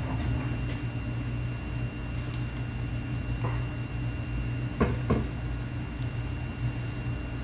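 Faint clicks and knocks of a long wrench on the cam sprocket bolt and timing chain of a Gen 3 Hemi, the clearest two close together about five seconds in, over a steady low hum.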